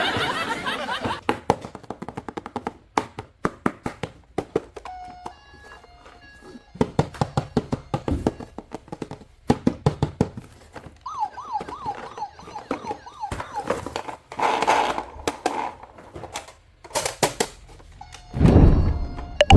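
Repeated clicks and knocks of plastic toys being handled, mixed with short electronic toy sounds, including a warbling siren-like tone around eleven seconds in.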